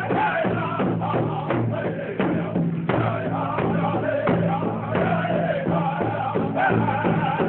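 Powwow drum group singing together around a big powwow drum: several men's voices chanting over a steady drumbeat.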